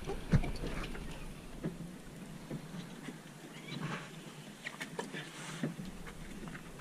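Faint wind and sea noise aboard a sailboat, with scattered light knocks and a few short, faint squeaks from the boat and its gear.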